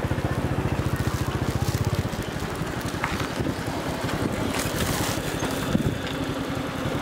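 Motorbike engine running while riding, with wind noise on the microphone; a steady engine note is strongest for the first two seconds, then eases into general engine and road noise.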